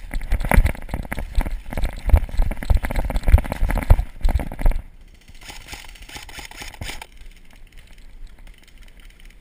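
Running footsteps with gear rattling, deep footfalls a little under two a second, then quieter brushing through tall grass from about five seconds in.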